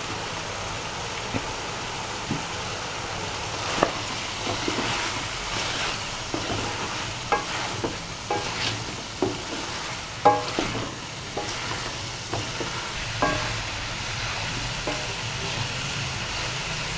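Wooden spatula stirring cauliflower florets and potatoes through a steel kadai, scraping and knocking against the pan at irregular moments over a steady sizzle of frying masala.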